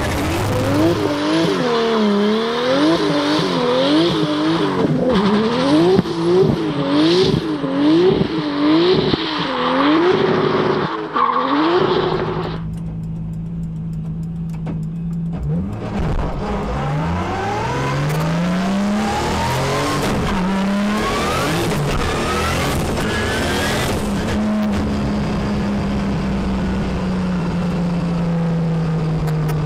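Nissan S14's 2JZ-GTE straight-six revving hard up and down with tyre squeal from wheelspin, the car throwing tyre smoke, for about the first twelve seconds. After a cut, the engine pulls through several quick upshifts of the sequential gearbox, its note climbing and dropping back at each shift, then settles into a steady cruise near the end.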